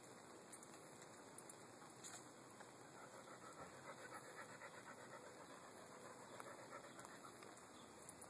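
A dog panting faintly and steadily.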